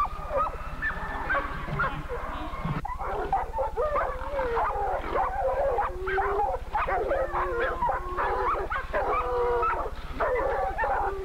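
Commotion of a hog catch: dogs barking and yelping and the caught wild hog squealing, with many overlapping cries that rise and fall. A steady low hum runs underneath.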